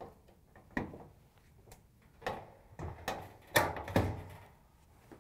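Several knocks and clunks of a clothes dryer's sheet-metal front bulkhead being lifted and hung onto its mounting screws, the loudest a little past three and a half seconds in.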